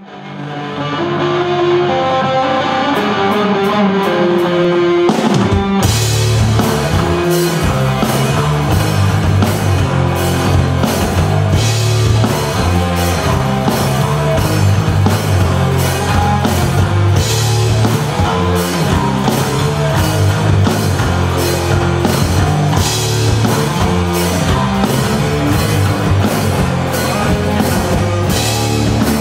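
Live heavy rock band playing: a distorted electric guitar riff on its own with light cymbal ticks, then drums and bass guitar come in about five seconds in and the full band plays a heavy riff.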